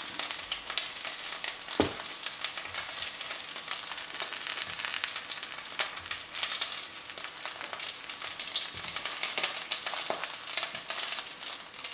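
Chicken wings and chopped garlic sizzling and crackling in hot olive oil in a sauté pan, with a knock about two seconds in and small clicks as metal tongs lift the wings out of the pan.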